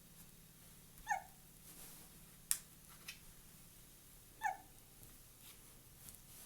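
Two short hiccups about three and a half seconds apart, each a brief squeaky 'hic' that drops in pitch, with a couple of sharp clicks in between.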